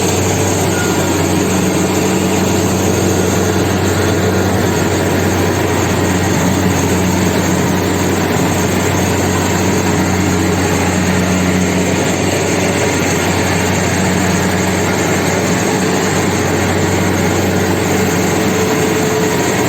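Kubota combine harvester's diesel engine running at a steady, unchanging pitch, a low drone under dense mechanical noise.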